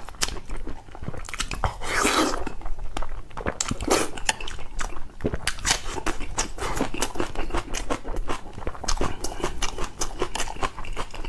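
Close-miked chewing and biting of food, with crunches and many irregular wet clicks from the mouth, and a louder bite or crunch about two seconds in.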